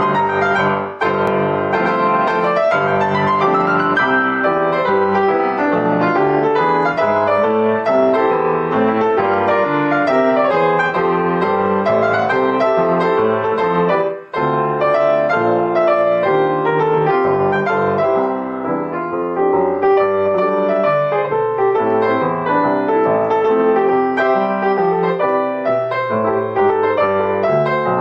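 Piano music playing continuously with many quick notes, breaking off for a moment about halfway through.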